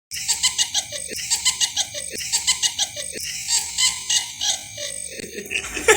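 An edited-in musical sound effect loop: a short phrase with falling, giggle-like pitched glides repeating about once a second over a bright rhythmic high part. It starts abruptly out of silence.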